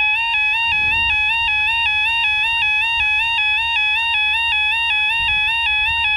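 Level crossing audible warning alarm: an electronic two-tone 'yodel' that alternates quickly and steadily between a lower and a higher pitch. Wind rumbles on the microphone underneath.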